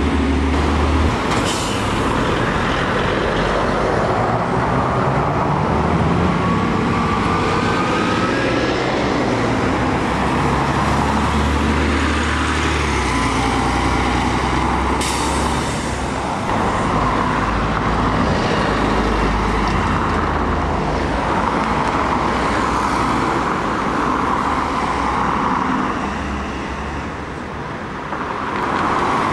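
Double-decker buses' diesel engines running as they pull away and drive past, with a rising whine about a third of the way in and two short sharp sounds, one early and one about halfway.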